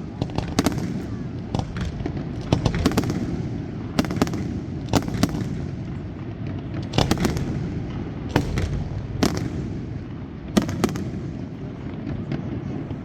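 Fireworks display: sharp bangs at irregular intervals, some in quick clusters of two or three, over a steady low din.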